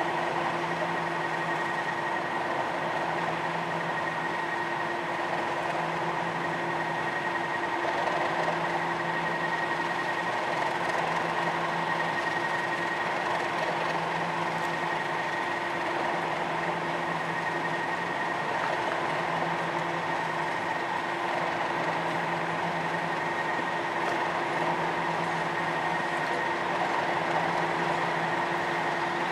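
Diesel locomotive engines of a Class 37 and a Class 56 running at idle: a steady engine hum with a thin high whistle, and a lower note that comes and goes about every second and a half.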